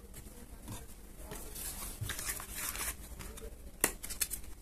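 Thin cardboard being folded and handled: soft rustling and crinkling, with one sharp click a little under four seconds in.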